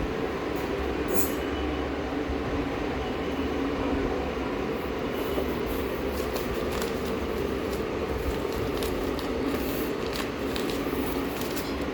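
Steady mechanical hum with scattered faint clicks and taps.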